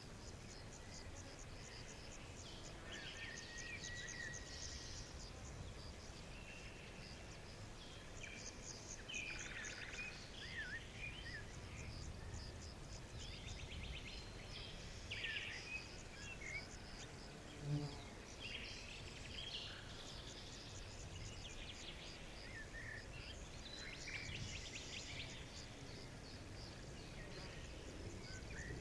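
Forest bird chorus: several birds chirping and trilling at irregular intervals over a steady low rumble. A brief low-pitched sound stands out about eighteen seconds in.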